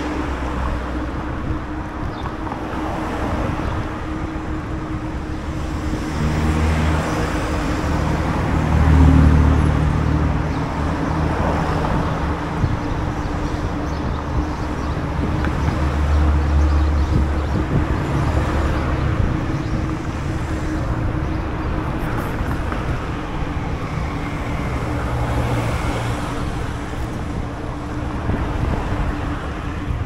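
Outdoor street ambience heard from a moving bicycle: a steady wash of road traffic and wind noise on the microphone, with low rumbling swells several times.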